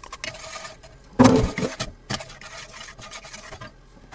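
Minced garlic scraped from a small bowl into oil in a frying pan, with light rubbing and clicking of the bowl and utensils. About a second in there is one louder knock with a short ring.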